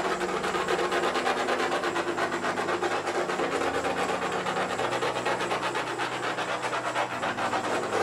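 Hair dryer running steadily, its small fan motor whirring under a rushing blast of air as it blows wet acrylic paint across a canvas to bring out cells.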